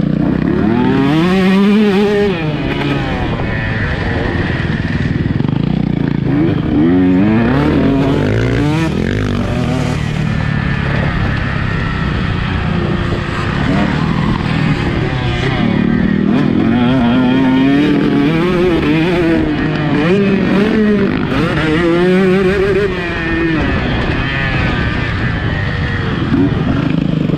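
Two-stroke KTM 150 SX motocross bike running hard, its revs climbing and falling again and again as it accelerates and backs off.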